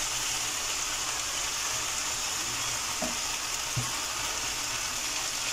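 Marinated chicken pieces sizzling steadily as they fry in oil and their own juices in a pan. Two light knocks come about three seconds in, as the pieces are moved about.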